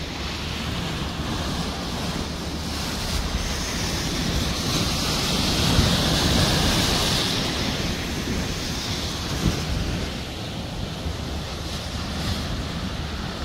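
Sea waves breaking and washing against rocks, swelling to a louder crash about six seconds in, with wind buffeting the microphone.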